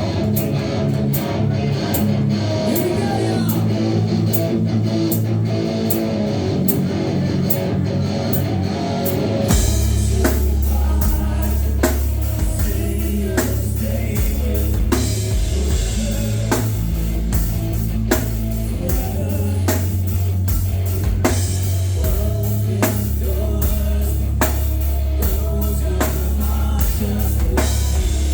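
Live rock band playing: electric guitar, drum kit and singing. About nine seconds in, the bass and full drums come in heavily over the steady cymbal ticks.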